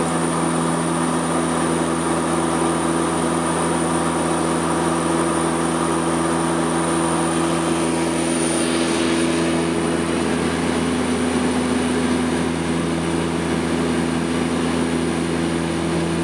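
de Havilland Canada Twin Otter's twin PT6A turboprop engines and propellers droning steadily at climb power after takeoff, heard inside the cockpit. It is a constant, even drone made up of several steady tones.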